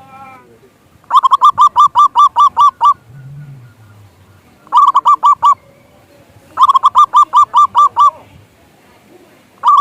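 Zebra dove (perkutut) calling: bursts of quick, evenly repeated cooing notes, four bursts in all, the first starting about a second in and the last cut off at the end.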